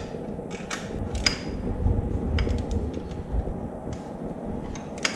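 Hand tools working on bolts: a socket wrench and an open-end wrench tightening the steel bolts of a motorcycle crash-bar bracket. Scattered, irregular metal clicks and clinks come over low fumbling handling noise.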